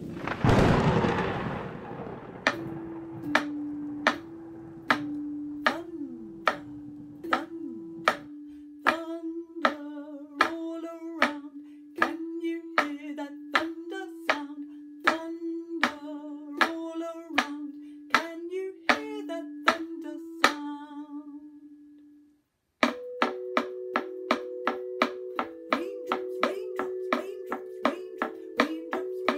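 Wooden claves tapped in a steady beat while a woman hums a wordless tune, after a short rush of noise at the start. After a brief break near the end the claves tap about twice as fast, still under the humming.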